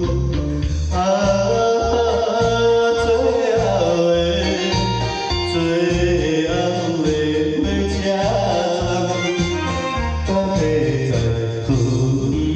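Music: a Taiwanese Hokkien pop ballad with a steady, pulsing bass beat under a sliding melody line.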